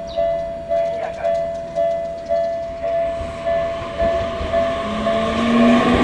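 Japanese railway level-crossing bell ringing in a steady two-tone ding about twice a second while a Tokyu Ikegami Line electric train approaches. From about three seconds in the train's running noise builds. Near the end an electric motor whine comes in, rising in pitch as the train runs onto the crossing.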